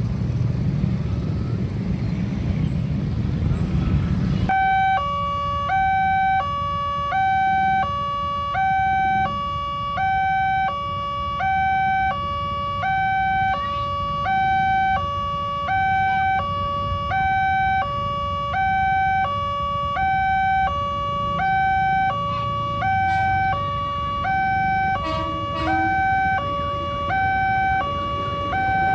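Railway level-crossing warning siren: an electronic two-tone alarm switching steadily back and forth between a higher and a lower pitch. A rumble of road traffic cuts off abruptly about four seconds in, and the alarm carries on alone from there.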